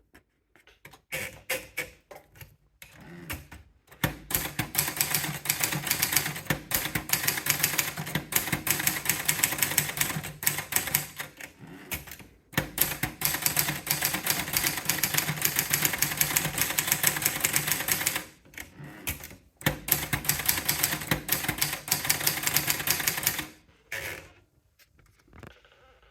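Sperry Remington 810 typewriter being typed on: a few scattered keystrokes, then long runs of rapid continuous typing, pausing briefly twice, and a few last strokes near the end.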